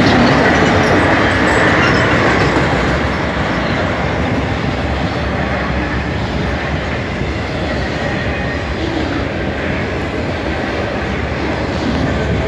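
Freight cars rolling past close by: steady, loud noise of steel wheels on the rails as loaded flatcars and then autorack cars go by. A high wheel squeal fades out in the first two seconds.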